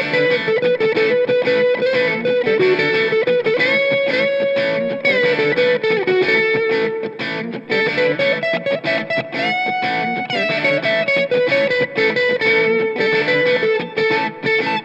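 Squier Classic Vibe Telecaster Custom electric guitar played through an overdriven amp: a fast lead line of picked notes with several string bends that glide up into held notes.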